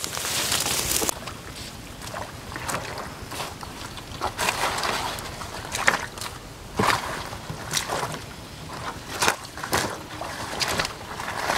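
Wading through shallow muddy water among lotus plants: irregular sloshing and splashing with leaves brushing, in short swishes every half second or so.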